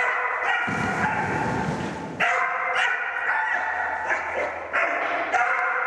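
A dog barking and yelping excitedly over and over while running an agility course, each call drawn out and high-pitched. A low rumbling noise runs underneath for about a second and a half, starting about a second in.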